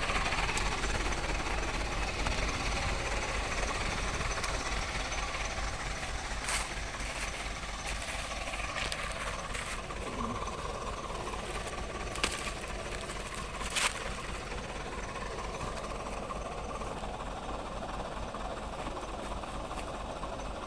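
Truck engine idling steadily, with a few short sharp clacks about a third and two-thirds of the way through.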